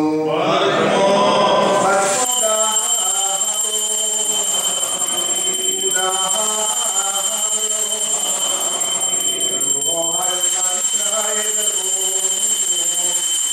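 Men's voices chanting a liturgical hymn together, Malankara Orthodox clergy at a relic installation service. A steady high-pitched tone runs beneath it from about two seconds in, after a brief rushing noise at the start.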